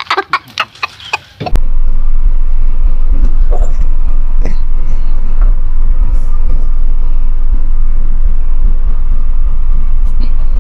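A small child crying in high, wavering wails that cut off abruptly about a second and a half in. A loud, steady low rumble follows, with a few faint clicks and rustles as work gloves are pulled on.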